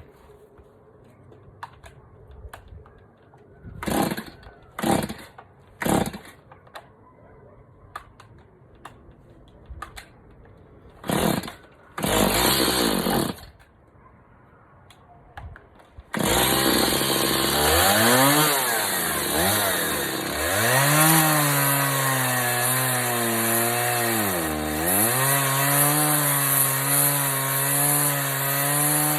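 Two-stroke chainsaw: several short bursts of noise in the first half, like pulls on the starter, then the engine catches about halfway through and runs on, revving up and down with a sharp dip in pitch near the end.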